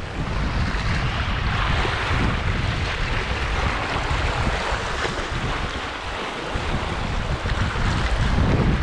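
Wind buffeting the microphone over the steady wash of sea waves on the shore, the gusts growing stronger near the end.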